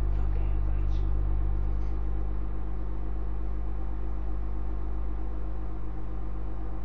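Steady low electrical hum with a haze of hiss above it, unchanging throughout.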